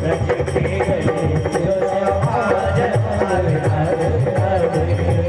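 Instrumental interlude of Hindi devotional bhajan music: a melody instrument plays over a steady drum beat.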